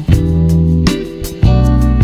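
Instrumental background music: sustained pitched chords with a deep bass line, a new chord struck at the start and another about a second and a half later.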